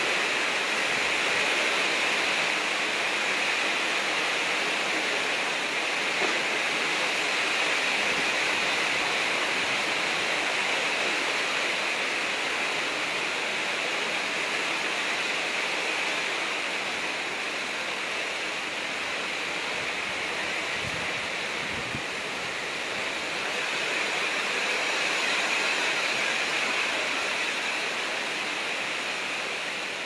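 Heavy rain and strong storm wind making a steady rushing noise.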